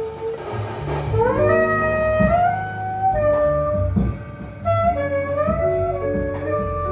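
Live small-group jazz: a saxophone plays a melodic line with notes that scoop up into pitch, over bass and drums with cymbal strokes.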